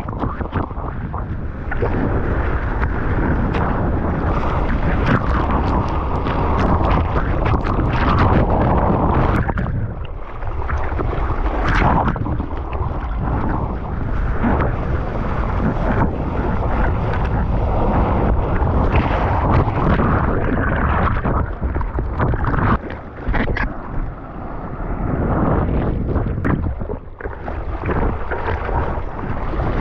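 Wind buffeting an action camera's microphone over rushing water and splashes while surfing, a loud, continuous rumble with short dips and a few sharp splashes.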